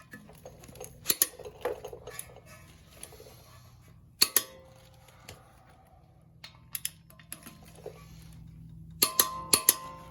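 Sharp metallic clicks and clinks from a torque wrench and socket on wheel-hub bolts, in short groups about a second in, near the middle, and a quick cluster near the end, as the bolts are checked to torque.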